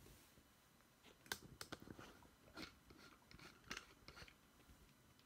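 Near silence: room tone with a few faint, scattered clicks and rustles.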